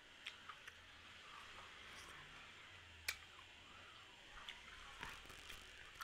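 Faint, soft wet squishes and scattered light clicks of fingers mixing rice with dal in a plastic tray, with one sharper click about three seconds in.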